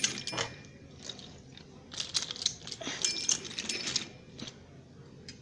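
Toy train cars clicking and rattling as they are moved along the track and handled: a few sharp clicks at the start, a busier run of clatter from about two to four seconds in, then quieter.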